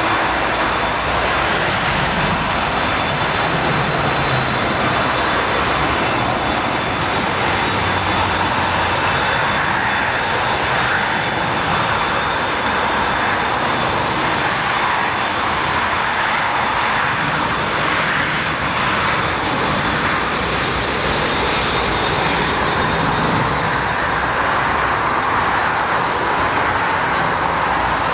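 Steady, even noise of an Airbus A380's jet engines running at low thrust as it rolls along the runway, with a faint steady high whine over the noise.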